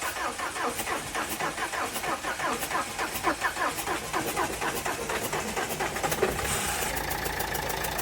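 Renault Duster engine cranking on the starter motor for a long time, with even compression beats about four to five a second, then catching about six and a half seconds in and running. The long crank is the hard-starting problem the owner reports, worst in the morning.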